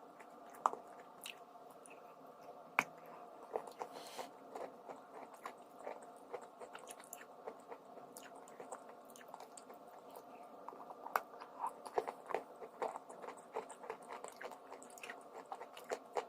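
Close-miked biting and chewing of crunchy dry chalk and clay, with many irregular sharp crackles that come thicker toward the end.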